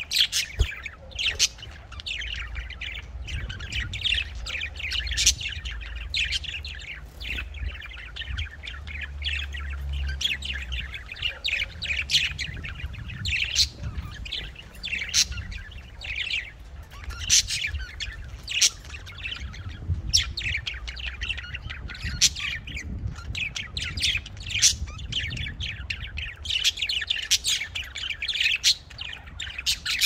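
Several budgerigars chirping and chattering continuously in quick short notes, with the occasional harsher squawk.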